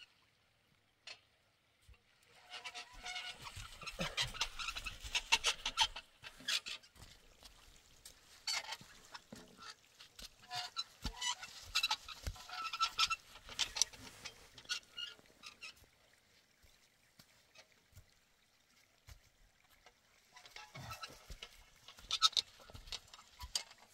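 A hand-pulled cylindrical roller worked back and forth over a layer of dry straw, squeaking and creaking in quick runs of clicks over the crunch of the straw. It goes in three spells with short pauses between.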